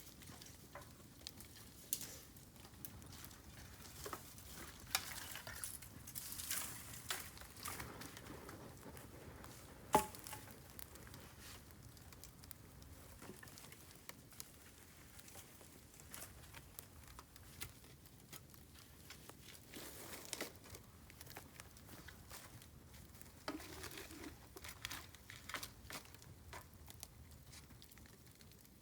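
Bamboo burning in an open fire: scattered crackles and snaps, with one sharp pop about ten seconds in.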